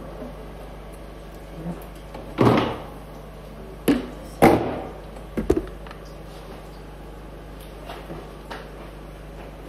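A few knocks and clatters of kitchen things being handled and set down. The two loudest come about two and a half and four and a half seconds in, each trailing off briefly, with sharp clicks just before the second and about a second after it.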